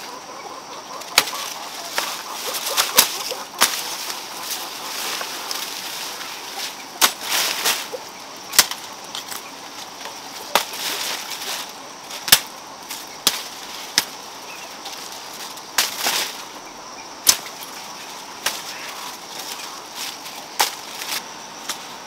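A hooked sickle blade slashing through sunflower stalks: sharp, irregular cuts about every one to two seconds, with stems and leaves rustling between the strokes.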